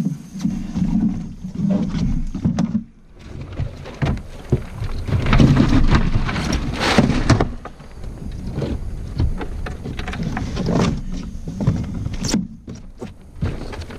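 Water splashing and irregular heavy thumps and knocks against the hull of a flat-bottom boat as an alligator is hauled over the side and into the boat, loudest about five to seven seconds in.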